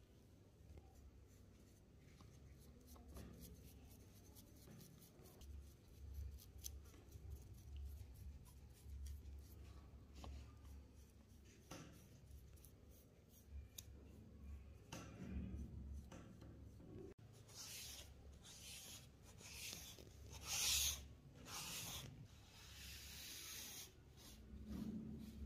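A small bristle brush scrubbing over the steel slide of an Astra 4000 Falcon pistol, then a cloth rubbing over the metal. The strokes are faint and irregular at first and become louder and hissier in the second half.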